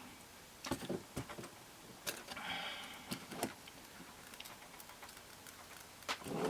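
Scattered small clicks and snaps, with one short scrape about two and a half seconds in, as a plastic pry tool works the cracked glass front cover of an iPod touch loose from its bezel.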